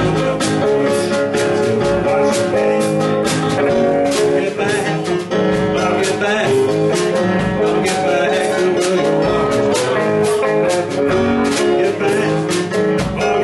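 Live rock band playing: electric guitar, keyboard and drums with a steady beat, and a male lead singer at the microphone.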